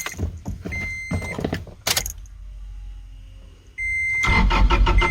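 A 2008 Toyota Tacoma's 2.4-litre four-cylinder cranking over on the starter near the end, in even rhythmic pulses, without catching, while a warning chime beeps. After a few clicks and chime beeps, this is a no-start that the truck's code puts down to the crankshaft position sensor (P0335).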